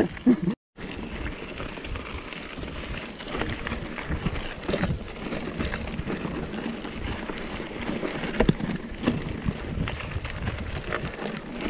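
Wind rushing over the microphone of a handlebar camera as a mountain bike rolls along a dirt track, with steady tyre noise and a few sharp clicks and rattles from the bike.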